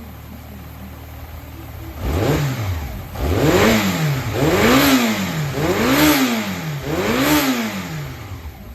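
Yamaha XJR400 air-cooled inline-four engine idling, then blipped five times, the revs rising and falling back to idle each time before it settles to idle near the end. It is a running engine assembly that the seller says runs with no abnormal noise.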